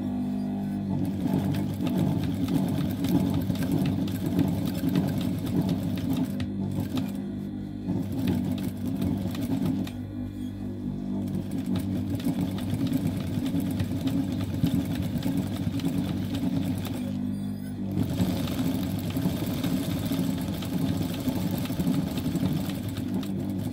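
TYPICAL industrial lockstitch sewing machine running fast, darning back and forth over a tear in denim. The stitching stops briefly three times.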